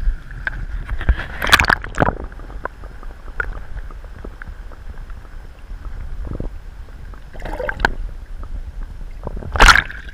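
Water sloshing and splashing with several sharp knocks and clatters, the loudest near the end, over a low rumble of wind on the microphone.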